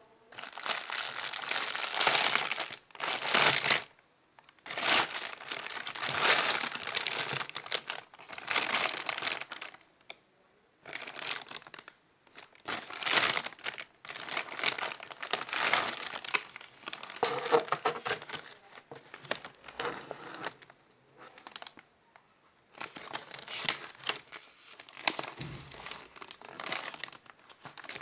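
Packaging being unwrapped by hand, crinkling and rustling in repeated bursts of a few seconds with short pauses between them.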